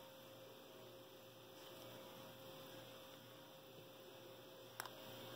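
Near silence: a faint steady electrical hum with hiss, and one short click near the end.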